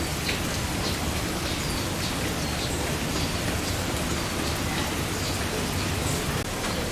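Heavy rain falling steadily, a continuous even hiss of drops hitting the ground and surfaces.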